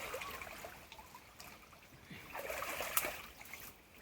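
Water trickling and splashing in two short stretches, at the start and again about two and a half seconds in, with a sharp click near three seconds.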